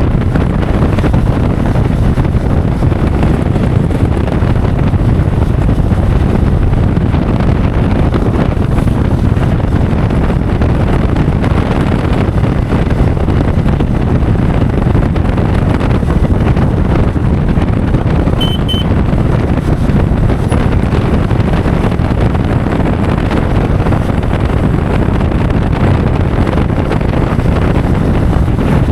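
Steady, loud wind buffeting on the microphone of a moving off-road motorcycle, with a heavy low rumble from the ride underneath.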